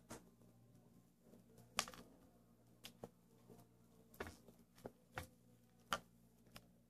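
Faint, scattered crackles and clicks of popcorn being handled and eaten: hands picking pieces out of serving trays and crunching them, with sharper clicks about two seconds in and again near six seconds.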